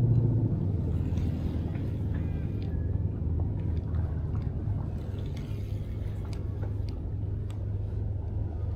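A low, steady engine rumble that slowly eases off, with a few faint ticks over it.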